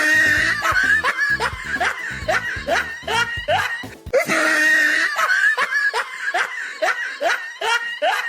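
Loud laughing over background music, in two bouts of about four seconds each, made of quick rhythmic 'ha-ha' pulses about three a second.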